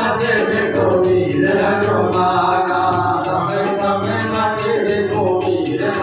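Male voices singing a Hindi devotional bhajan to Hanuman, with hand percussion keeping a steady, fast beat.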